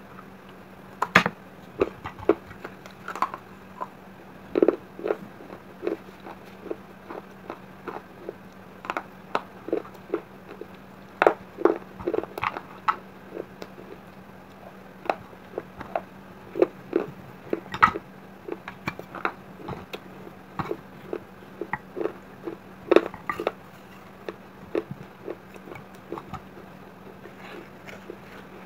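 Close-up crunching of fired terracotta clay-pot shards being bitten and chewed: many short, crisp crunches at irregular intervals, roughly one or two a second.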